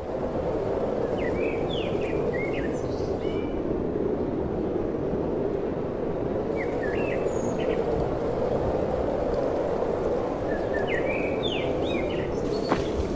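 A small bird chirping in three short runs of quick calls over a steady rushing outdoor background.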